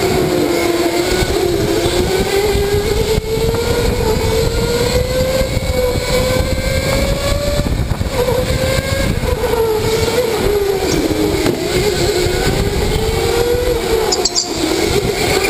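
Electric go-kart motor whining under way, its pitch rising and falling with speed through the corners, over a steady rushing noise.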